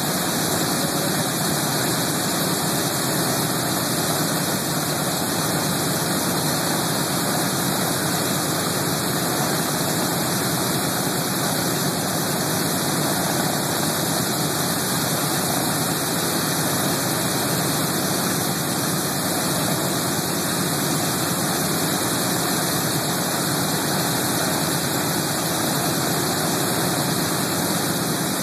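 Boeing B-17 Flying Fortress's Wright R-1820 Cyclone radial engines idling steadily, propellers turning.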